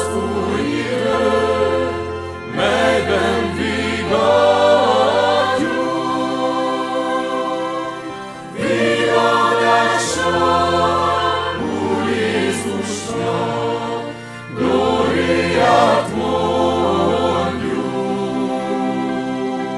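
Vocal ensemble singing a Hungarian folk-song arrangement: several voices over held low bass notes, in phrases a few seconds long with short breaths between them.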